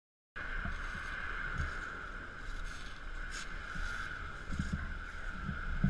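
Steady outdoor background noise, cutting in just after the start, with a few soft low bumps and a brief rustle about three seconds in.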